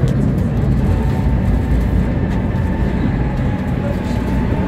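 Tram running along its rails: a steady low rumble of the wheels and running gear, heard on board. A thin faint tone comes in about a second in and rises a little toward the end.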